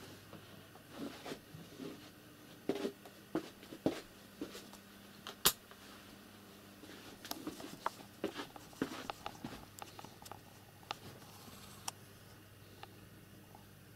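Faint, irregular light taps and knocks of a cat moving about a windowsill and pawing at the window glass while hunting flies, with one sharp click about five and a half seconds in, over a low steady hum.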